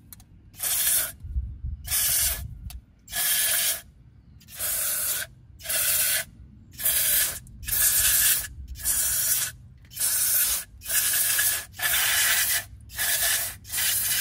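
Aerosol contact cleaner sprayed through its straw into a small brushed DC motor from a boat's power trim/tilt pump: about a dozen short hissing bursts, roughly one a second. It is flushing dirt off the motor's brush contacts; the owner suspects the motor is not bad, just dirty.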